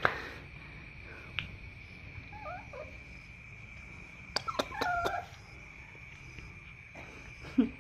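Short chirping animal calls, one group about two and a half seconds in and another about five seconds in, the second with a few sharp clicks, over a steady high-pitched whine.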